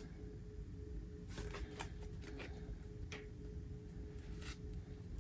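Tarot cards being handled and laid out on a table: a few soft, scattered card slaps and rustles.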